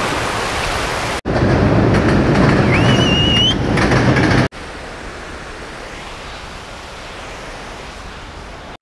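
Rushing river water at first. After a sudden cut about a second in comes a louder steady rush with a short rising whistle about three seconds in, and after another cut about halfway through, a quieter steady rush.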